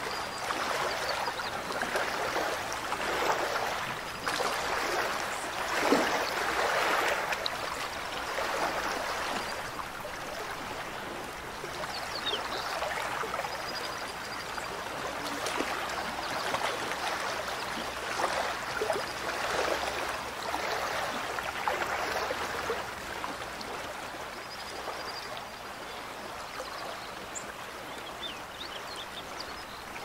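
Mountain stream running, a continuous rush of water that swells louder over the first several seconds and then settles to a steadier flow.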